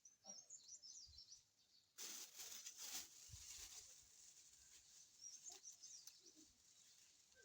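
Small birds chirping in short, high twitters near the start and again later, faint. About two seconds in, a rustling noise lasts roughly a second.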